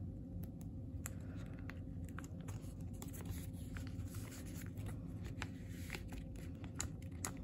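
Faint crinkling and small ticks of a plastic binder pocket page as a photocard is handled and slid into its sleeve, with one sharper click near the end.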